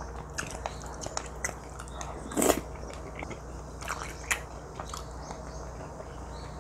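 Close-up eating sounds: squid being bitten and chewed, with scattered light clicks of a spoon against the pan and one louder short noise about two and a half seconds in.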